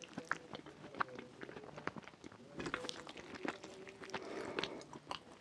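Close-miked chewing of chicken rfissa: irregular sharp, wet mouth clicks and smacks, several a second, with sticky fingers pulling at the chicken in the dish.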